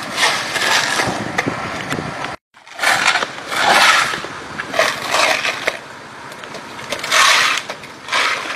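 Shovels and hoes scraping wet landslide mud across an asphalt road in repeated strokes, roughly one a second, starting about three seconds in.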